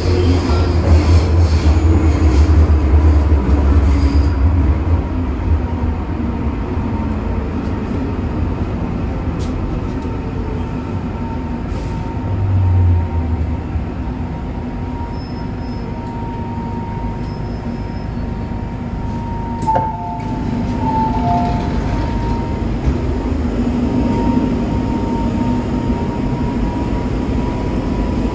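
MTR M-train electric multiple unit heard from inside the car, running in the tunnel and slowing into a station. A heavy rumble in the first few seconds eases off, the motor hum slowly falls in pitch, and a thin high squeal sounds through the second half.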